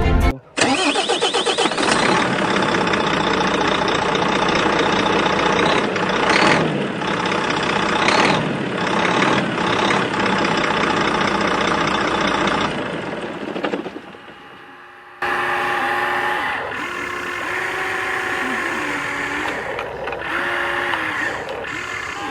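RC excavator (Huina 1593) running: an engine-like sound starts up and runs steadily, then fades and cuts out about fourteen seconds in. After a brief pause comes a steadier sound whose tone steps up and down in pitch, typical of the toy's electric motors working.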